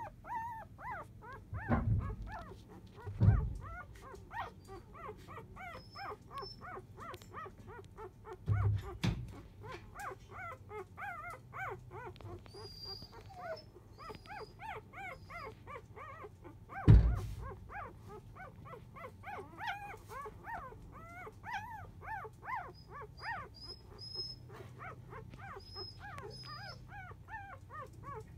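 Four-day-old Labrador retriever puppies squeaking and whimpering, many short high cries overlapping without a break. A few dull bumps come through, the loudest about two-thirds of the way in.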